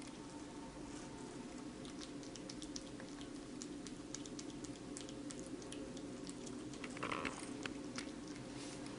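A kitten licking and chewing at a wedge of watermelon: many small, quick wet clicks and smacks, with a brief louder noise about seven seconds in.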